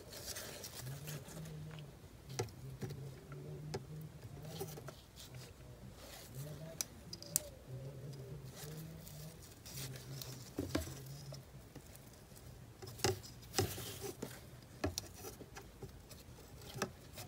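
Faint rustling and light ticks of ribbon being handled, pulled snug and folded around a plastic headband as it is woven in a zigzag. A faint low hum comes and goes underneath.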